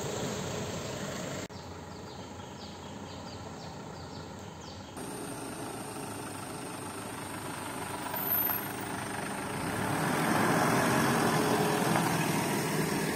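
Ford Everest SUV engine running as the vehicle drives slowly along a gravel lane. It grows louder about ten seconds in as it passes close by.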